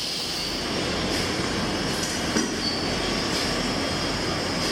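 Steady machinery noise of a leather watch-strap workshop floor, with a high hiss and a few faint clicks, one a little louder about halfway through.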